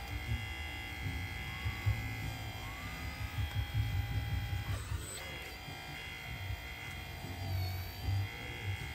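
Electric-driven hydraulic pump of a 1/16 scale RC Volvo EC160E excavator whining steadily as the arm and bucket dig, its pitch dipping briefly a couple of times as the controls are worked.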